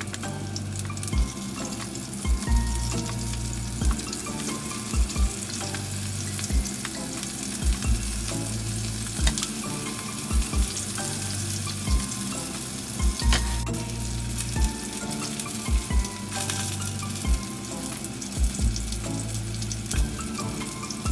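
Food sizzling as it fries in a pan, a steady crackling hiss, over background music with a steady beat.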